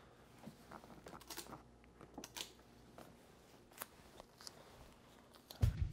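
Faint, scattered rustles and small clicks of thin silnylon fabric and masking tape being handled on a wooden floor. Just before the end, music with a drum beat starts.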